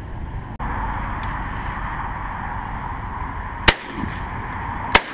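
Two shotgun shots fired at flying woodpigeons, a left-and-right about a second and a quarter apart near the end, each a sharp, loud crack.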